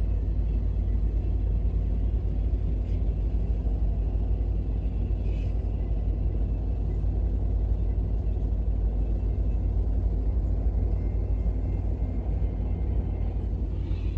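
Steady low rumble of a vehicle heard from inside its cab, with no change in level.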